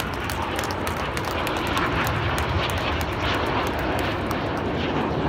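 Red Arrows' BAE Hawk T1 jets flying in formation, a steady jet roar that grows a little louder about two seconds in, with light crackling over it.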